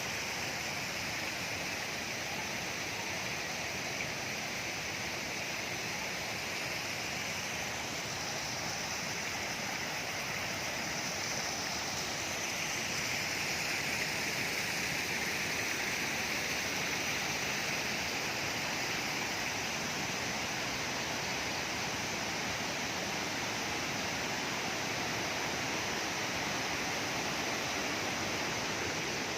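River water rushing in a steady, even rush, growing a little louder about halfway through.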